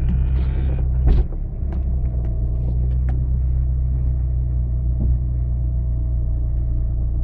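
Off-road 4x4 vehicle's engine running steadily, with a sharp knock about a second in and a few light clicks.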